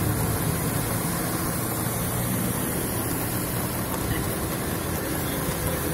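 Cars driving slowly through a flooded street: a steady engine hum, with floodwater washing around the tyres.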